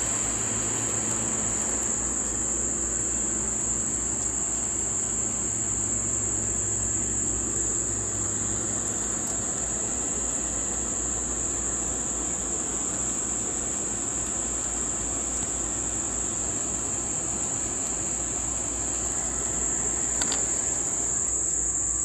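Steady high-pitched chorus of insects, over a constant low hum.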